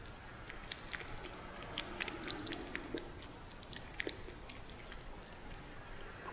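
A weaning kitten eating from a shallow bowl: quick, irregular wet clicks of its mouth and tongue, thickest in the first four seconds and thinning out after.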